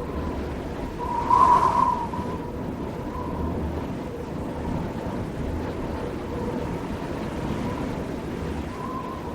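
Ox cart being pulled, its wooden wheels rumbling steadily, with squeaky wheels giving short squeals every second or two.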